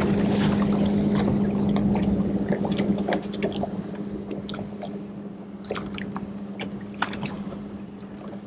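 Bass boat's electric bow-mount trolling motor running with a steady low hum, with water lapping against the hull and scattered small splashes and ticks.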